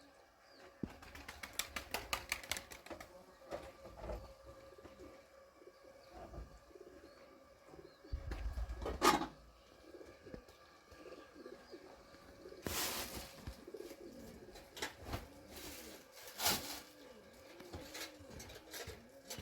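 A dove cooing, a repeated series of soft arching notes in the second half, with a quick run of clicks early on and a few brief scraping noises.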